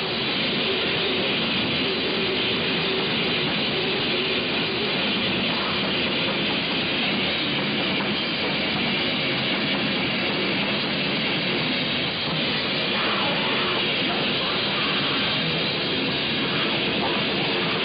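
Gore metal band playing live: heavily distorted electric guitars and a drum kit in one dense, steady wall of sound.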